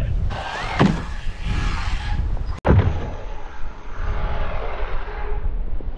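JMRC S910 brushless 1/16 RC truck running on 3S and launching off a jump, its electric motor whining, with a heavy low rumble of wind on the microphone. The sound breaks off suddenly a little under halfway through and picks up again.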